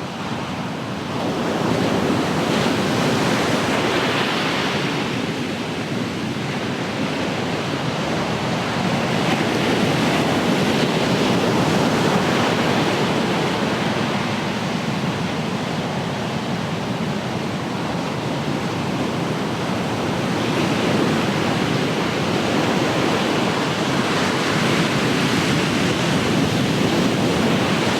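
Ocean surf: waves breaking and washing ashore, the rush of water rising and falling in long swells several seconds apart.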